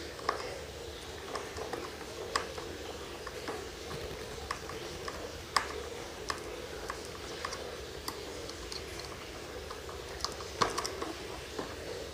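Irregular small clicks and taps of a long screwdriver on the screws of a brushless motor mount as they are tightened bit by bit, with the sharpest clicks about halfway through and near the end. A steady faint hum runs underneath.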